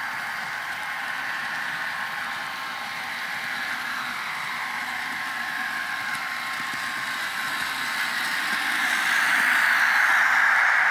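N scale model train with DCC sound running on the layout: a steady rushing hum of wheels, motor and sound decoder that swells as the train comes closer and is loudest near the end.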